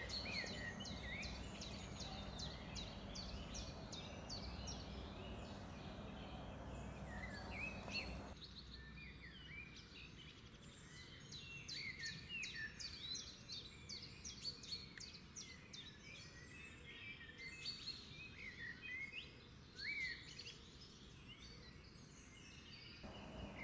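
Faint chirping of small birds: many quick, high chirps and short calls over a low, steady background hiss.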